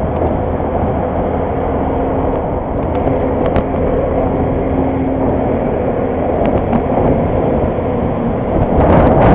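Steady wind and road rush from riding a bicycle among car traffic, with a faint steady hum through the middle and a few light clicks, growing louder near the end.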